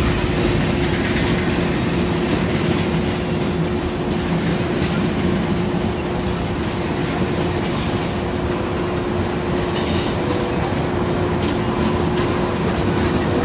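Freight train of tank cars and covered hoppers rolling past close by: a steady rumble of steel wheels on rail with a faint regular clicking over the rail joints.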